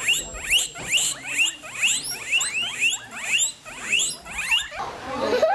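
Guinea pigs wheeking: a quick run of short, high squeals that each rise in pitch, about two to three a second, stopping shortly before the end.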